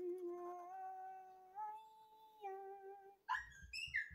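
A person humming a few long held notes, stepping up in pitch and then back down. Near the end, a short high squeaky sound over a few low knocks.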